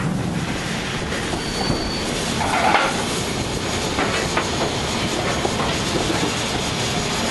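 Steam train rolling along the track, a steady rumble with wheels clicking over the rail joints and a brief high squeal about a second and a half in.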